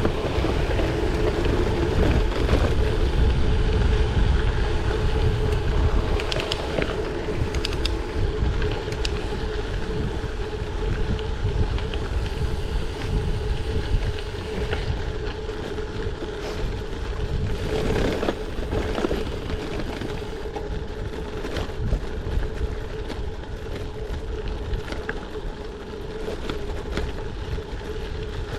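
Gravel bike ridden at speed, heard from a bike-mounted action camera: wind rumble on the microphone and tyre noise, with a steady hum throughout. The rumble is strongest in the first several seconds.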